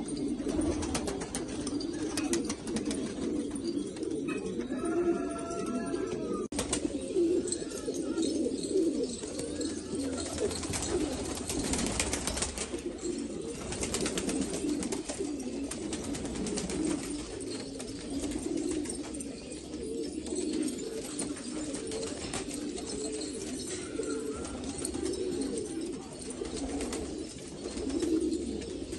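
Domestic pigeons cooing, many birds overlapping in a continuous low warbling murmur, with scattered short clicks.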